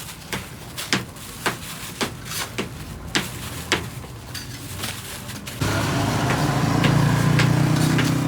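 Sharp knocks about twice a second, then about five and a half seconds in a motor-driven machine starts abruptly and runs steadily and loudly.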